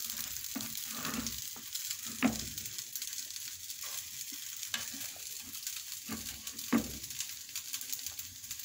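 Rice frying and being stirred in a hot stone-coated frying pan: a steady light sizzle, broken by scattered scrapes and knocks of the spoon and spatula against the pan. Two of the knocks, a couple of seconds in and near the seventh second, are louder than the rest.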